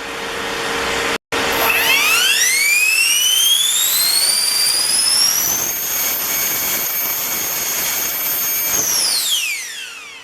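120 mm all-metal electric ducted fan on a 14S battery, throttled up: a high whine rising steeply over several seconds with a rush of air, held steady at full speed for about three seconds, then spooling down near the end.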